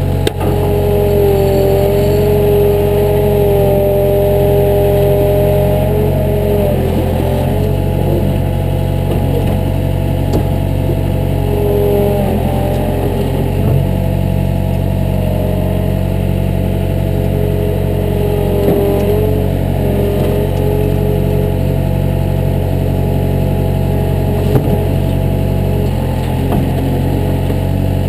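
Earthmoving machine's diesel engine running steadily, with a higher whine above it that breaks off and comes back a few times.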